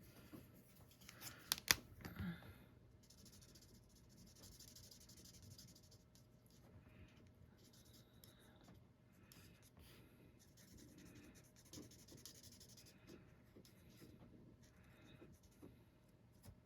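Faint scratching of an alcohol marker's tip stroking over cardstock as small stamped hearts are coloured in. There are a few sharp clicks about a second or two in.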